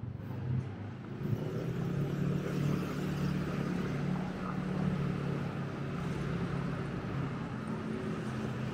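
Street traffic: a motor vehicle's engine running with a steady low drone over road noise, starting about a second in.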